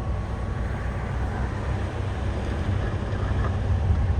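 Diesel engine of heavy earthmoving machinery, a crawler bulldozer or excavator, running steadily under work with a deep, even drone.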